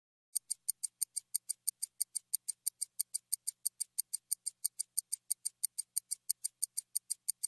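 Ticking-clock sound effect: fast, even, crisp ticks, about four to five a second, starting a moment in.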